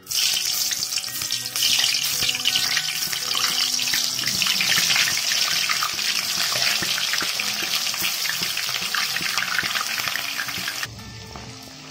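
Thin raw potato slices sizzling in hot oil in a kadai, a loud, dense hiss thick with fine crackles, the sound of chips deep-frying. The sizzle falls off sharply about eleven seconds in.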